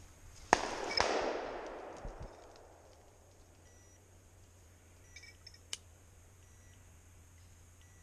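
Two shotgun shots about half a second apart, fired at a flushing game bird; the second echoes away through the woods for a couple of seconds. A faint click follows a few seconds later.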